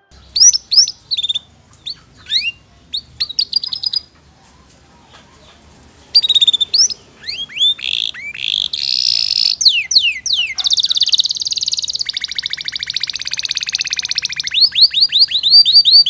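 Domestic canary singing a long, varied song. It opens with quick downward-sweeping whistled notes and pauses briefly about four seconds in. It then runs into fast trills and a long buzzy roll, and ends in rapid repeated notes.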